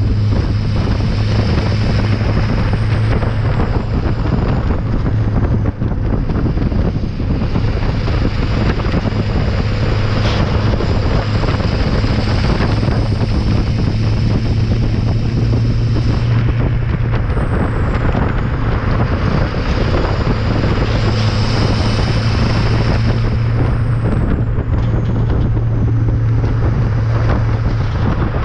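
LLY Duramax 6.6-litre V8 turbo-diesel exhaust at a steady cruise, recorded right at the tailpipe: a steady low drone over road and tyre noise, with wind on the microphone. A faint high whistle rises and falls a few times.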